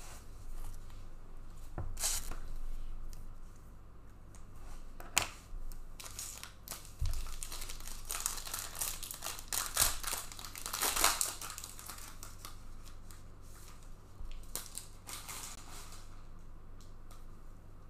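Plastic wrapping on trading-card packaging crinkling and tearing as a sealed box or pack is ripped open. The rustles come in irregular bursts, busiest in the middle.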